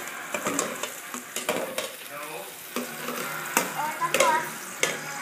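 Metal ladle stirring ginger, garlic and onion sautéing in a stainless steel pot, with a steady sizzle and frequent sharp clinks of the ladle against the pot.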